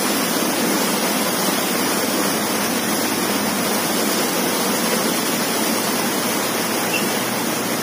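Steady rush of water pouring through an opened canal dam gate, an even, unbroken noise.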